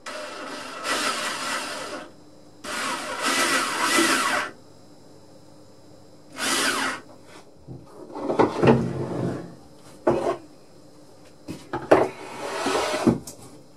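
A drill boring into wood in a series of harsh, noisy bursts: two of about two seconds, a shorter one, then several short irregular ones, some with a deeper rumble.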